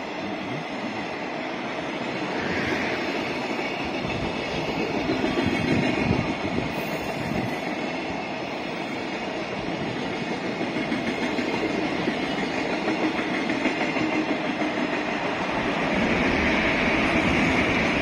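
Container freight train rolling past, its flatcar wheels clacking over rail joints with a steady rumble. It grows louder near the end.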